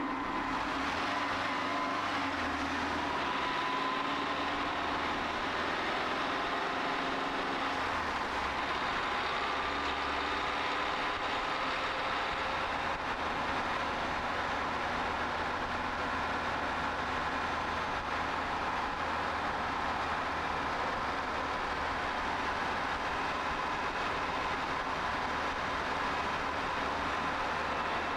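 Car driving on a main road: steady tyre and road noise with the engine running underneath. The engine note shifts a few times in the first several seconds as the car pulls away, then holds steady while cruising.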